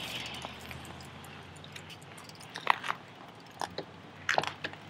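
Two road bicycles setting off: a few short, sharp clicks and crunches from the bikes and the riders' cleats, scattered through the second half. A hiss fades away over the first second or so.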